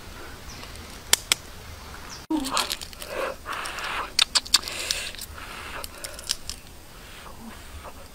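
Shell of a cooked duck egg being cracked and picked off by hand: two sharp taps about a second in, then a run of small crackles and clicks as pieces of shell break away.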